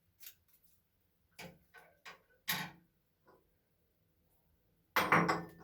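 Short clicks and rustles of hands handling a homemade plastic-bag squishy and its tape, with a louder, longer rustle about five seconds in.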